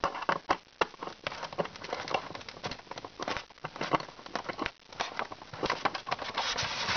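Handheld screwdriver turning a stiff screw out of a diecast model car's base through its styrofoam packaging, making irregular small clicks and scrapes. It becomes a denser rubbing scrape near the end. The screwdriver fits the screw badly.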